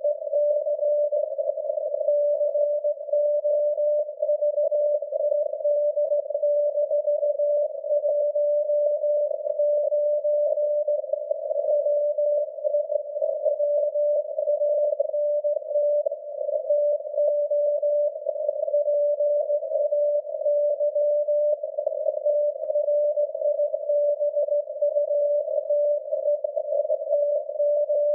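SAQ's Alexanderson alternator transmitter on 17.2 kHz, received on a radio in CW mode and heard as a steady whistling beat tone inside a narrow band of hiss and static. Reception is noisy.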